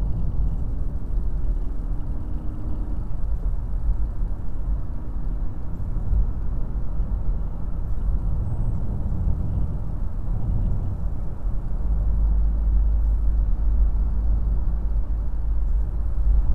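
Steady engine and tyre road noise of a moving car, heard from inside the cabin, mostly a low rumble. A faint engine note rises over the first few seconds, and the low rumble grows stronger from about two-thirds of the way in.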